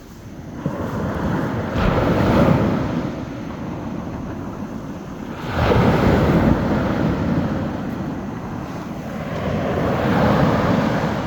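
Small sea waves breaking on a beach shoreline, with three surges of rushing wash: one building about a second in, a sharper break about five and a half seconds in, and a softer swell near the end.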